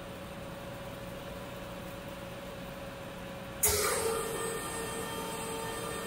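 Steady hum of machinery in a cleanroom test bay. About three and a half seconds in, a sudden loud rush of noise starts, then settles into a louder, steady hiss with a hum.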